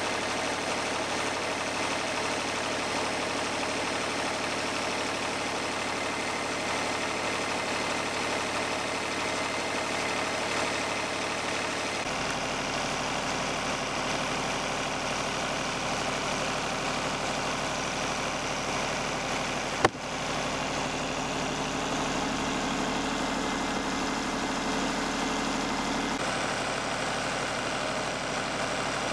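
Portable band sawmill's engine running steadily; its low hum shifts abruptly twice, and there is one sharp click about two-thirds of the way through.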